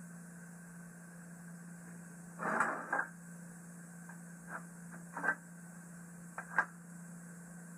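Steel bending-brake leaf and end plates handled on a steel bench: a short scrape about two and a half seconds in, then several sharp clinks and knocks as the parts are shifted into alignment, over a steady low hum.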